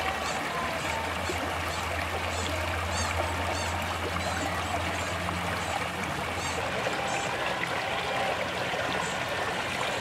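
Shallow stream rushing over rocks: a steady, even rush of water, with short high chirps repeating every half second or so.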